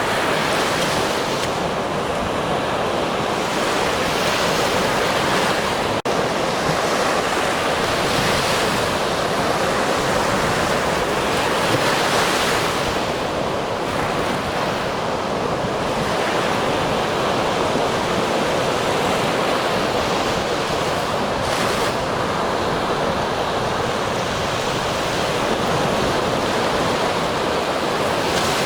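Ocean surf: a continuous wash of breaking waves, with the hiss swelling every few seconds as each wave breaks and runs up the shore.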